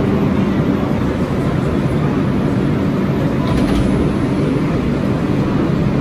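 Bombardier R142 subway train standing at the platform, its ventilation and on-board equipment running with a steady low hum over station rumble. A few light clicks about three and a half seconds in.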